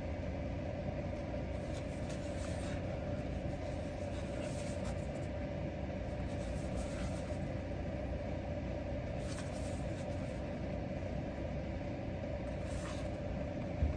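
Steady low hum and hiss of room noise with a faint steady tone, and a few faint rustles from a cardboard product box being handled.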